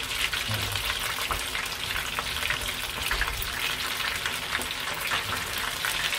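Cornstarch-coated squid rings (calamari) deep-frying in hot oil: a dense, steady crackling sizzle of many small pops.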